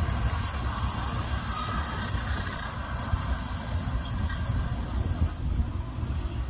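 Engine of an off-road trial buggy running under load as it crawls up a dirt bank, a steady low-pitched sound.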